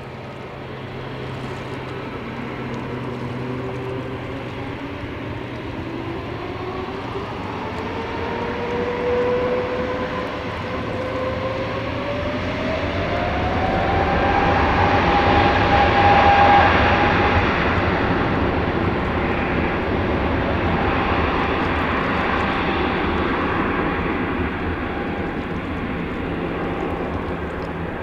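Airbus A320neo's Pratt & Whitney PW1100G geared turbofans spooling up to takeoff thrust on the takeoff roll. A whine rises steadily in pitch over the first dozen seconds, the engine noise is loudest a little past halfway as the jet rolls past, then fades slowly as it accelerates away.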